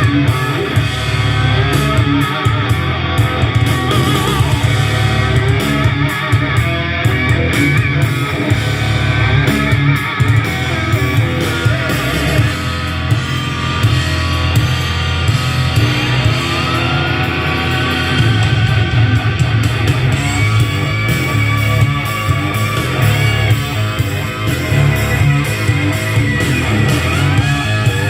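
Guitar-driven rock music played loud through an onn. Party 2 party speaker with bass boost and outdoor mode on, heavy in the bass.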